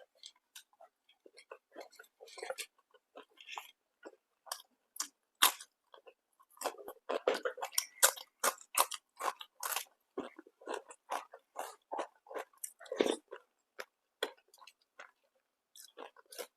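A person chewing and biting food close to the microphone: a quick, irregular run of small wet, crunchy mouth sounds, busiest around the middle and thinning out near the end.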